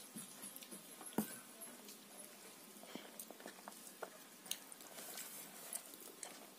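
Soft scattered clicks and small knocks of a steel bowl and a hand working curry into a plate of rice, the loudest a single knock about a second in.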